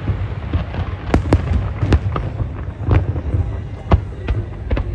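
Large fireworks display: a rapid, irregular string of sharp bangs, several a second, over a continuous low rumble.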